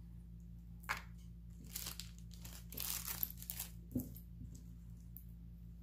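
Packaging crinkling and rustling as it is handled, in a few irregular bursts, with a short knock about four seconds in.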